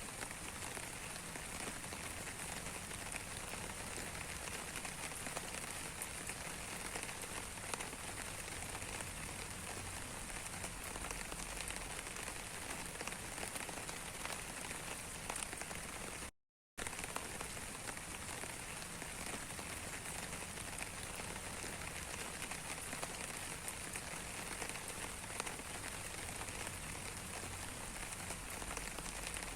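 Steady rain falling, a dense hiss with many small drop ticks. It cuts out completely for about half a second just past halfway, then comes straight back.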